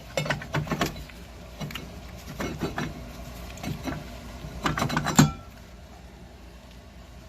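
Brake rotor being worked off the Jeep Patriot's rear hub: a run of metal clinks and scrapes, ending in a loud clank about five seconds in.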